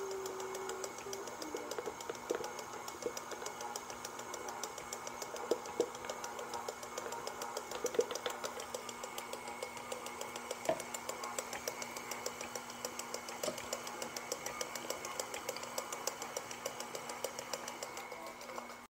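Electric stand mixer running steadily at low speed, beating cookie dough as flour is added, with a fast fine rhythmic ticking from the motor and a few light clicks and taps. The sound cuts off suddenly near the end.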